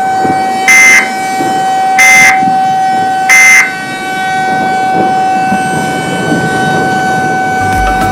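Emergency Alert System end-of-message data tones: three short, loud bursts of warbling digital SAME code about a second and a half apart, marking the end of the warning. A steady droning tone runs underneath, and low music begins near the end.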